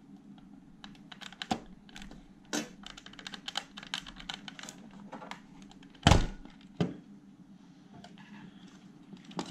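Plastic front cover of an APC Smart-UPS 750 being pulled loose by hand: a run of small plastic clicks and creaks from its tight clips, with a loud knock about six seconds in and a smaller one just after.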